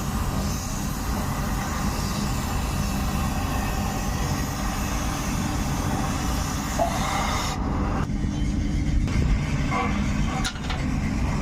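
Steady, loud low rumble of metalworking machinery, with a hiss on top that drops away about eight seconds in.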